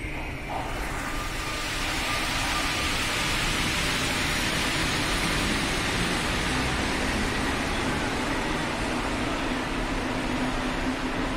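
MPL 85 rubber-tyred metro train pulling out of the platform and running off into the tunnel. A steady rushing hiss builds up over the first couple of seconds and then holds.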